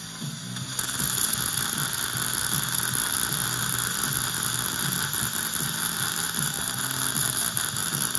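Dental implant surgical handpiece starting about a second in and running steadily at the implant site, with a hiss of irrigation spray and surgical suction.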